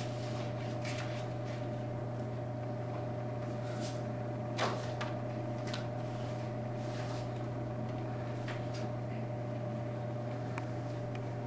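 Steady low room hum with a fainter steady tone above it, under faint light knocks and rustles of poster boards being swapped on a wooden easel; one slightly louder sharp sound about four and a half seconds in.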